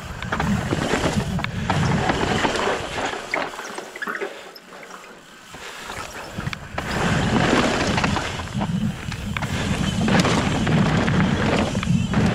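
Wind buffeting the microphone over the rumble and rattle of a mountain bike rolling over rock slabs, with scattered clicks and knocks. The noise drops away for about two seconds near the middle, then rises again.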